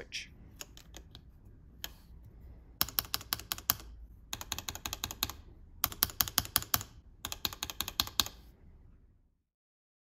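Keycapped Durock L7 linear mechanical switches in a bare plate being pressed rapidly in four runs of about a second each, with a few single presses before: a sound test set against a cream-housed NovelKeys Cream switch.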